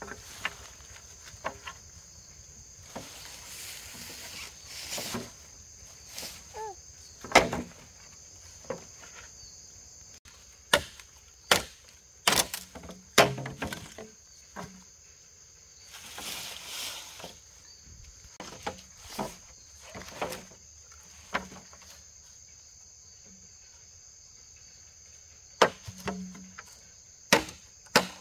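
Machete chopping green bamboo poles: irregular sharp cracks, some single and some in quick clusters, over a steady high-pitched drone of insects. Twice there is a few seconds of rustling.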